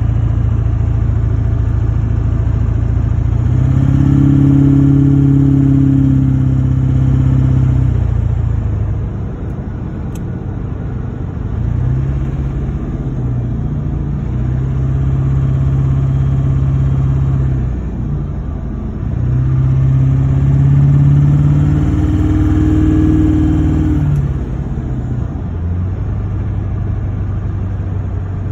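GM LB7 Duramax 6.6-litre V8 turbo-diesel idling and being revved up and held three times, then settling back to idle, with the ticking noise that its owner is trying to show.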